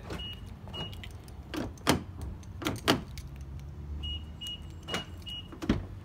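Power door lock actuators of a 2004 Toyota Sequoia clunking as the key fob's lock button is pressed, with several sharp clicks and a few short high beeps. The newly replaced actuator now locks the door fully, and the latch clicks as the outside handle is tried near the end.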